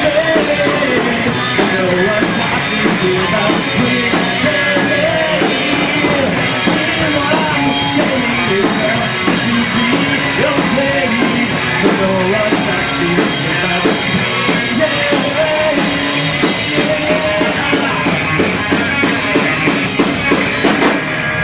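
Rock band playing loud and live, drum kit driving under the amplified instruments. Near the end the drums and cymbals stop and a low note is left ringing as the song closes.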